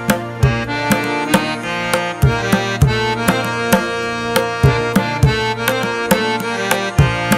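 Background music: a steady drum beat under held melodic notes.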